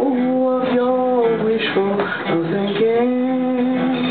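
Acoustic guitar strummed while a voice sings long held notes that slide between pitches, with no clear words.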